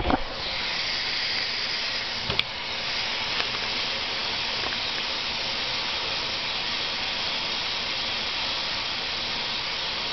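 Water running steadily into a porcelain basin, an even hiss, with one light knock about two seconds in.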